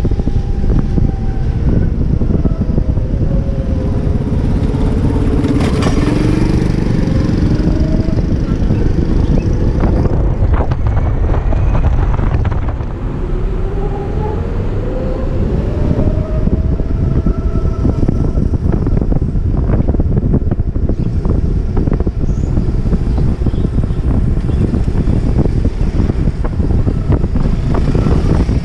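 Wind noise on the microphone of a moving BMW C-Evolution electric scooter, with a thin whine from its electric motor that falls in pitch in the first few seconds and glides up again about halfway through.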